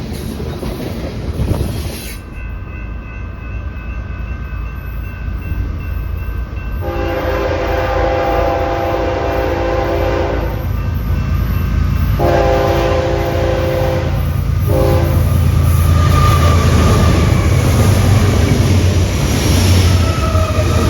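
Locomotive horn sounding a chord of several notes: two long blasts and a short one, with the horn sounding faintly beforehand. Then the heavy low rumble of the train grows louder as it comes close.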